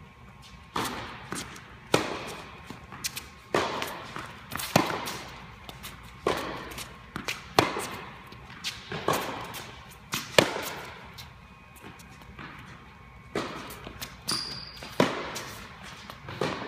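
Tennis rally: a racket hitting the ball and the ball bouncing on a hard court, a run of sharp pops about one every second or less, each echoing in an indoor tennis hall.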